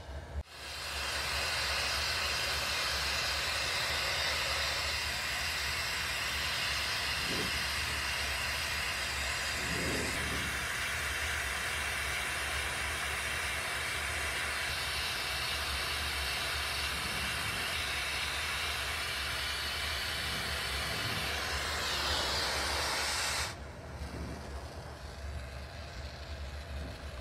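Oxy-fuel hand torch flame hissing steadily as it heats glass on a glass lathe, over a low steady hum. The hiss comes in suddenly about half a second in and cuts off sharply near the end.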